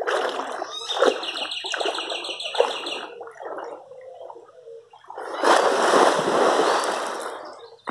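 Water splashing in a spring-fed pool: a few short splashes, then a bigger splash about five seconds in that runs for about two seconds as spray falls back onto the surface.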